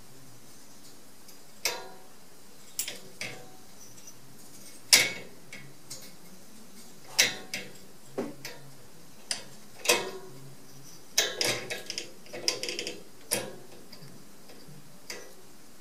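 Metal slide-bolt latch and wire cage door clicking and rattling as a cat paws at the bolt, trying to work it open. The clacks come at irregular moments, with a quick run of them about three quarters of the way through.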